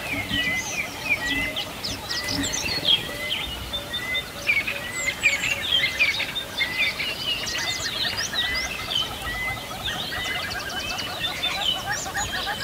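Many birds chirping and trilling at once, a dense chorus of overlapping calls. A short whistled note repeats about twice a second through the first half.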